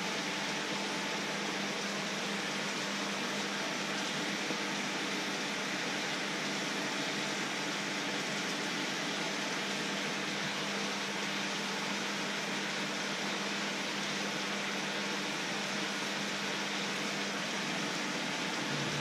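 Water at a rolling boil in a wide wok, a steady hissing bubble, with a steady low hum underneath.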